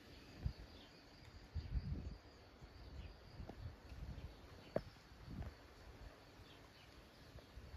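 Quiet countryside ambience: a few faint bird chirps over a thin, steady high hum, with low rumbling puffs on and off. A single sharp tick comes just before five seconds in.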